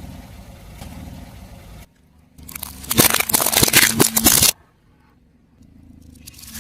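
A car tyre rolls over and crushes crunchy objects. Loud, dense crackling and crunching lasts about two seconds, starts and stops abruptly, and sits between stretches of low rumble from the car.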